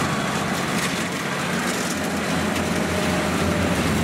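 Kubota DC70 combine harvester's diesel engine and threshing mechanism running steadily under load while it cuts rice.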